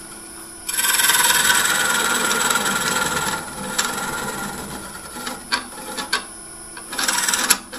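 Square carbide cutter scraping the tenon of a wooden bowl blank spinning on a Jet 1642 wood lathe, squaring off the bottom of the tenon. A long cut starts about a second in and lasts nearly three seconds, then lighter passes with a few clicks, and a second short cut near the end, over the lathe's steady running hum.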